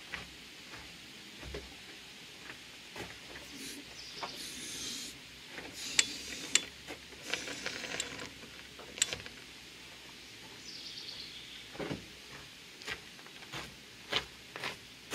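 Scattered metallic clinks and scrapes of hand tools working on a rusty Jeep Dana 30 front wheel hub and steering knuckle, with sharp clicks about six and nine seconds in.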